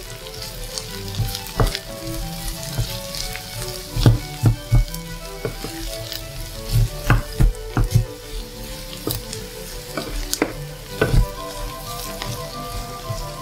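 Chicken gizzards and onion sizzling as they stir-fry in a stainless steel frying pan. A wooden spatula knocks and scrapes against the pan at irregular intervals.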